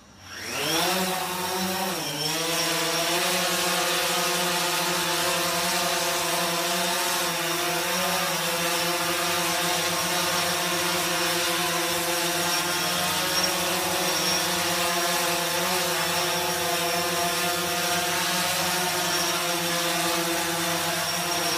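DJI Phantom 3 Standard quadcopter's four motors and propellers spinning up about half a second in, then a steady buzzing whine as the drone hovers. The pitch dips and recovers briefly about two seconds in.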